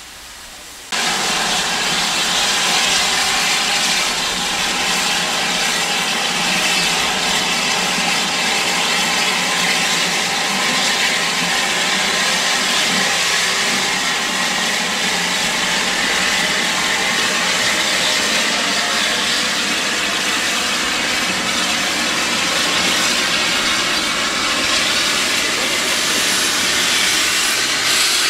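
Steam hissing steadily from LSWR T3 class 4-4-0 steam locomotive No. 563. The hiss cuts in suddenly about a second in and then holds even, with no exhaust beat.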